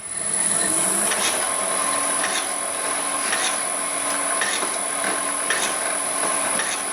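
Homemade mains-powered crusher and wire-cutter machine starting up and running steadily, with a high whine and a light tick about once a second. The reassembled mechanism is running in, its front bolt left slightly slack to wear in.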